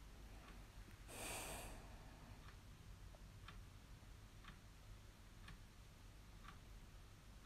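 Near silence with faint, regular ticking about once a second, and one short breathy hiss about a second in.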